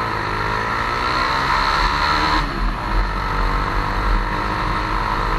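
Motorcycle engine pulling under throttle. Its pitch climbs for about two and a half seconds, drops suddenly, then climbs again.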